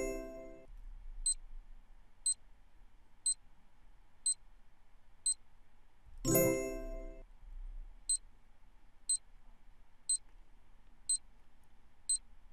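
Quiz countdown-timer sound effect: five short high ticks, one a second, then a short bright chime as the answer is revealed. The cycle runs twice: a chime at the start, five ticks, a chime about six seconds in, then five more ticks.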